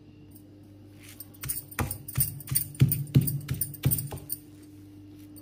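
Stone pestle pounding and crushing a wet paste in a stone mortar: a run of about ten sharp knocks, roughly three a second, starting about a second in and stopping near the end.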